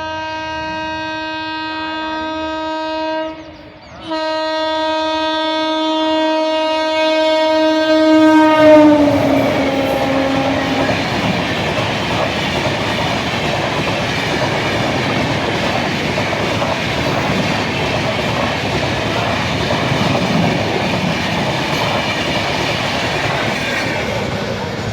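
WAP-7 electric locomotive's horn sounding two long blasts with a short break between them, the second dropping in pitch as the locomotive passes at speed. The express train's coaches then rush past with the steady clatter of wheels on rail joints.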